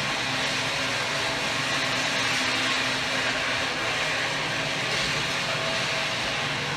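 Live experimental noise music: a dense, steady wall of hiss with a few faint held tones beneath it, unchanging in level.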